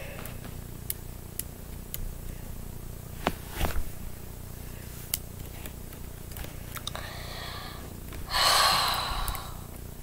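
Quiet room with a few faint clicks and knocks, then a person's breath drawn in and let out as a sigh of about a second near the end.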